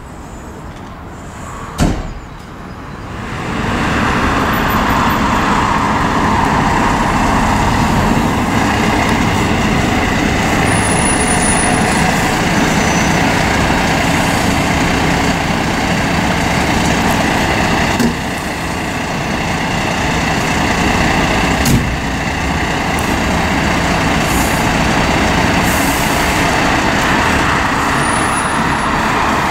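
Diesel engine of a new Volvo FL fire engine running as it drives out of the station bay. It gets much louder a few seconds in and then holds steady, with a sharp click about two seconds in and a couple of short sharp noises later on.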